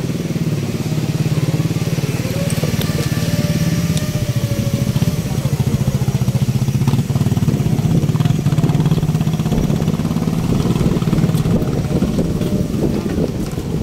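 Motorcycle engine running steadily close by, a low, fast, even putter.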